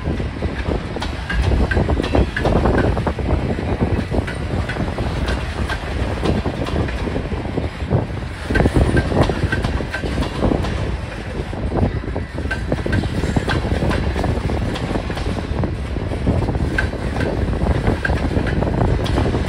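Freight cars of a CPKC mixed freight train rolling past: a steady rumble of wheels on rail with many short clicks as the wheels pass over the rail joints.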